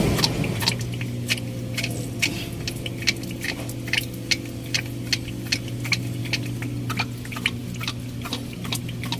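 A machine runs with a steady low hum while sharp ticks repeat about three to four times a second.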